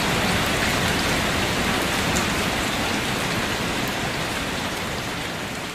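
Steady rain falling, an even hiss that grows slightly quieter near the end.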